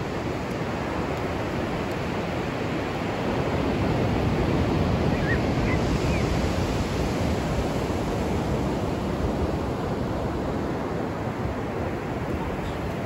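Ocean surf breaking and washing up a flat sandy beach, a steady roar of water that swells a few seconds in.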